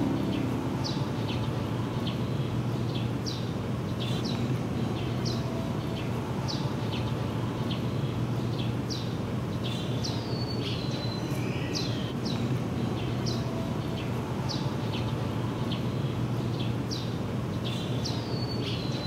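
Birds chirping: short, high, falling notes repeated about once a second, over a steady low hum and background noise.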